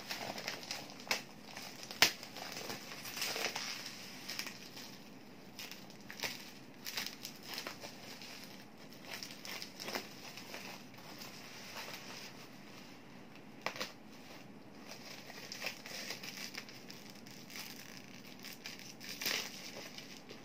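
Plastic bubble wrap being pulled and peeled off a cardboard box, crinkling and rustling irregularly. A few sharp clicks stand out, the loudest about two seconds in.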